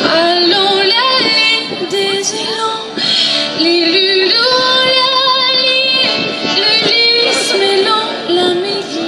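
A woman singing live into a microphone, holding long notes with vibrato, over her own keyboard accompaniment.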